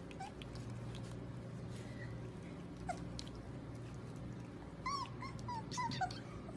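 Puppy whimpering and yipping: one short squeak about three seconds in, then a quick run of high little whines near the end.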